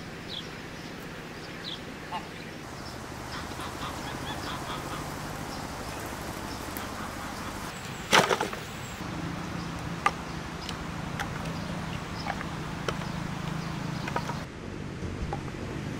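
Split firewood thrown down onto the ground with a loud clattering knock about halfway through, followed by a few lighter knocks of logs being gathered and stacked. Small birds chirp in the background during the first half.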